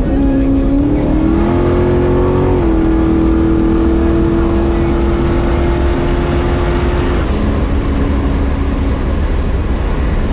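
Car engine running under way: its pitch climbs in steps over the first couple of seconds, holds steady, then drops about seven seconds in and fades.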